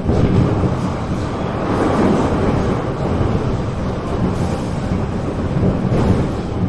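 Metro Cammell MLR electric train running at speed, heard inside the passenger car: a loud, steady rumble from the wheels and running gear on the track, jumping up in level right at the start.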